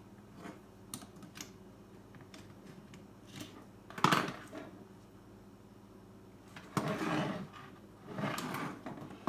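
Scattered small clicks and taps of plastic parts and tools being handled during disassembly of a car radio unit, with one sharper knock about four seconds in and rattly clusters of clicks near the end.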